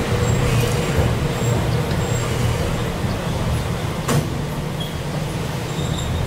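Chikuho Electric Railroad 3000 series electric car running slowly as it pulls into a station stop, heard from inside the cab: a steady low rumble of wheels on rail. A single sharp clack sounds about four seconds in.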